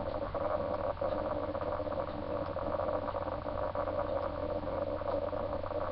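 Steady background hum and hiss of a webcam microphone, with faint light ticks and rustles from hands handling a doll and a paper leaflet.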